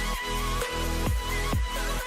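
Electronic dance music with a deep kick drum that drops in pitch, hitting a few times a second under warbling synth lines.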